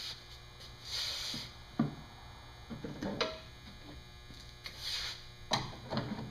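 Small wheel attachment being fitted to a belt grinder by hand: a few sharp metal clicks and knocks with some short scraping hisses, over a steady low hum.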